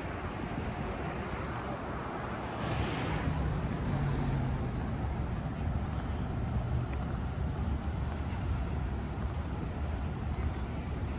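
City street traffic: a steady low rumble of vehicles, with one louder vehicle passing about three seconds in.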